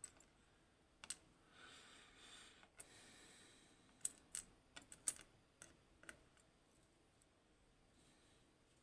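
Small, sharp metal clicks and taps from the parts of an Assa 600 pin-tumbler lock cylinder being handled as it is taken apart. There is a single click about a second in, a short soft scraping stretch, then a cluster of quick clicks between about four and six seconds.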